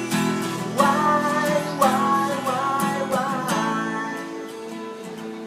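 Acoustic guitar strummed steadily, with a wavering held melody line over the chords for the first few seconds; the playing gets softer near the end.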